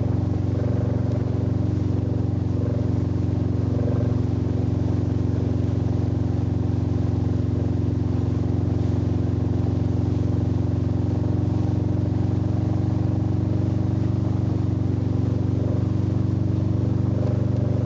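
Tow boat's engine running steadily under way, a constant low drone, with the rush of the churned wake and spray under it.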